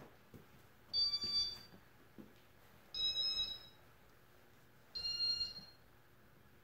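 Casablanca ceiling fan's electronic control beeping three times, about two seconds apart, each a short high chirp, over a faint steady hum.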